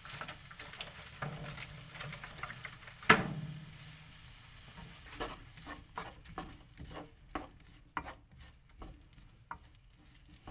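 Wooden spatula stirring vegetables and fries in a wok, with scraping and clicking against the pan over a faint sizzle that fades away, the heat having just been turned off. One louder knock about three seconds in.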